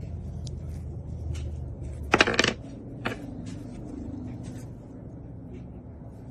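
Small hard metal parts being handled: scattered light clicks, with a brief loud metallic jingling clatter about two seconds in and a sharp click a moment later.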